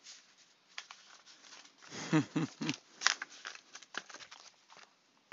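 Sealed trading-card packaging being opened and handled: cardboard and plastic wrap crinkling and tearing, with scattered small clicks and a louder cluster of scraping about two seconds in.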